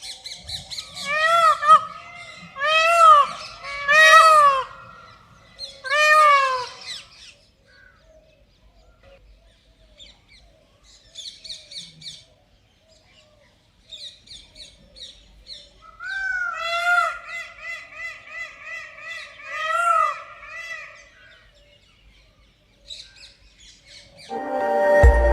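Indian peafowl (peacock) calling: loud calls that each rise and then fall in pitch, in two bouts a few seconds apart, with fainter short calls between them. Music starts right at the end.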